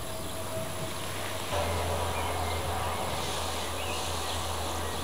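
Outdoor garden ambience: a steady background hiss with a few faint high chirps, and a low rumble on the microphone that comes in about a second and a half in.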